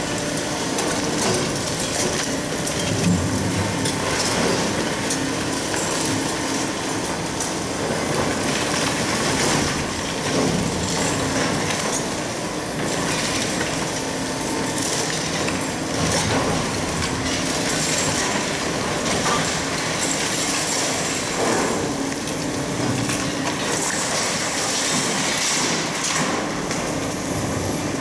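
Kobelco hydraulic excavators demolishing a concrete building: concrete cracking and crunching, with frequent knocks and clatter of falling rubble over the steady drone of the machines' engines.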